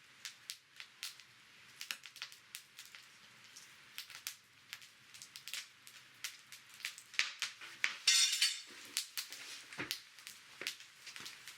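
Wood fire crackling, with many sharp, irregular pops and snaps. About eight seconds in there is a brief, louder crunch.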